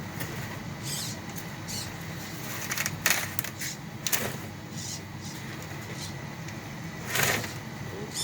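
Small RC rock crawler's electric motor and gears whining in short spurts as it is driven back and forth. There are a few louder knocks, at about 3, 4 and 7 seconds in.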